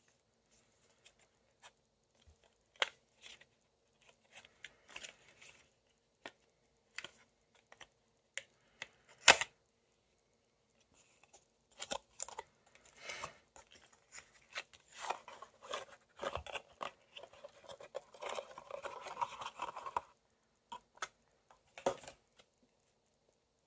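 Handling a small cardboard photocard box: scattered taps and clicks as the box is opened and its inner tray slid out, one sharp click about nine seconds in, then a denser run of rustling and scraping of cardboard and cards from about twelve to twenty seconds.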